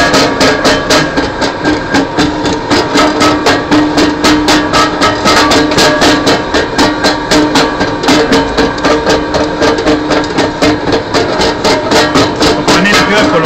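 A small 11 kW rotary grinder shredding fabric and clothes, its rotor cutting with a fast, even beat of knocks over a steady motor hum.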